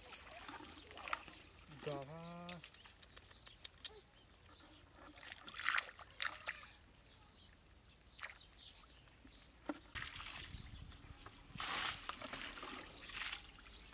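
Muddy water splashing and pouring as a shallow mud pond is bailed out with a plastic bucket: scattered separate splashes, then a longer run of splashing near the end.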